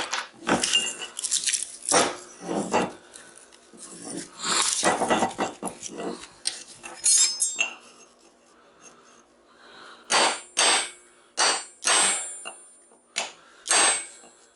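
Metal clattering and scraping as a scrap transformer's steel core is worked apart with hand tools. In the second half come about six sharp strikes of metal on metal, each with a short high ring.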